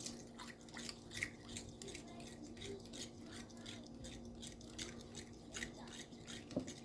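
Faint, irregular light clicks and rustles of kitchen handling over a steady low hum.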